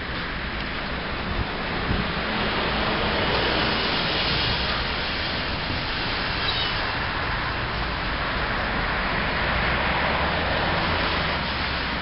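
Steady rushing wind blowing across the microphone, a rough hiss with a fluttering low rumble underneath.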